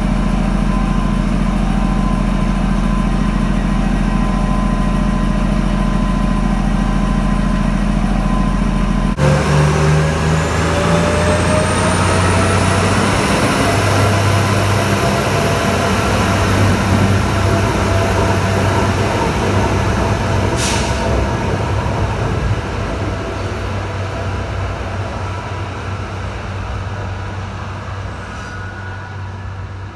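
Pesa SA133 diesel railcar's engine running steadily at a stop, then loud as the train pulls away, with a whine that rises in pitch as it gathers speed. It fades steadily as the train moves off into the distance.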